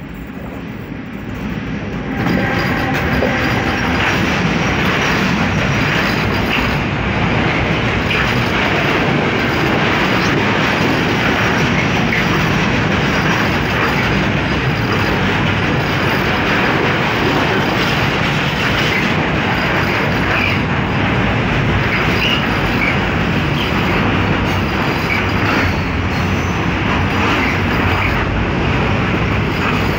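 Freight train passing close by: the noise rises sharply about two seconds in as the Siemens Vectron electric locomotive arrives, then stays steady and loud as the container wagons roll past, wheels running over the rails.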